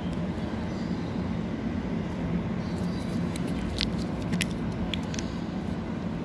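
A cat chewing a chicken treat: a few short, wet clicks about halfway through, over a steady low hum.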